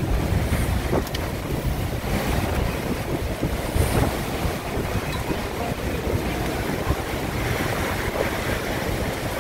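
Category 5 hurricane wind ripping really hard past the building in a continuous rush, with gusts buffeting the microphone.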